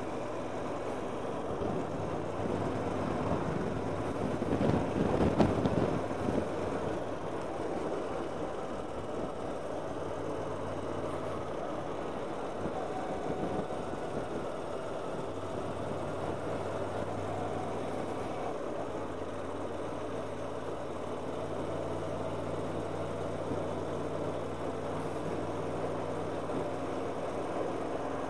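Motorcycle engine running steadily at road speed, mixed with wind rush; a louder rush of noise swells and fades about five seconds in.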